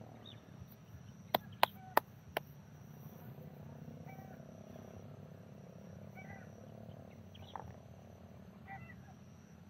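Frogs and other small animals calling at a lakeside at dusk: a steady low drone with scattered short chirps. About a second and a half in, four sharp clicks come within a second.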